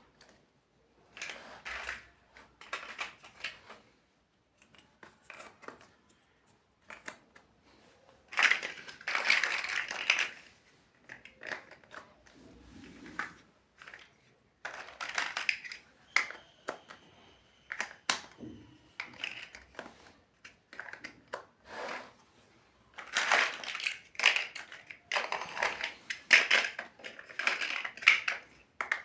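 Plastic building-block pieces clicking and rattling as they are handled and pressed together, in irregular bursts with short pauses between.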